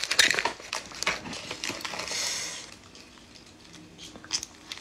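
Close handling of sauce-covered spotted babylon snails in a disposable plastic glove: crinkling of the glove and small clicks and crackles of the shells, densest in the first two seconds, with a brief hiss about two seconds in and a few fainter clicks later.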